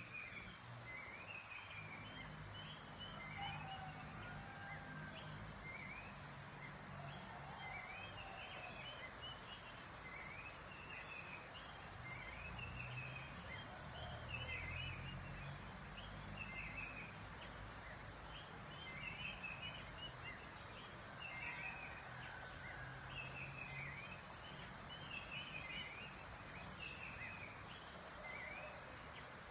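A steady, fast-pulsing high insect trill, like crickets, with songbirds chirping repeatedly over it every second or two.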